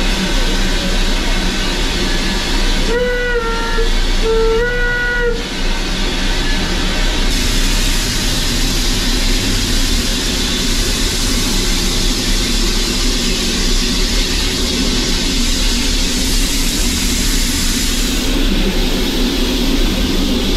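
Oil-fired steam locomotive working, heard from beneath its boiler beside the oil burner as a loud, steady rushing noise. A steam whistle blows twice in short blasts about 3 and 4.5 seconds in.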